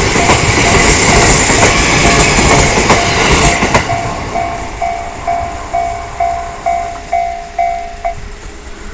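A train passes over a level crossing, its wheels clacking over the rail joints, while the crossing's warning bell rings about twice a second. The train noise falls away about four seconds in, leaving the bell on its own, and the bell stops near the end as the crossing clears.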